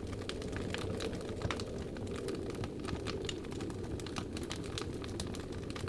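Wood fire crackling, with many irregular sharp pops and snaps over a steady low rushing underneath.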